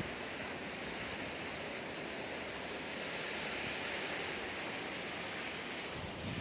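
Steady outdoor background hiss, even and unbroken, with no distinct events.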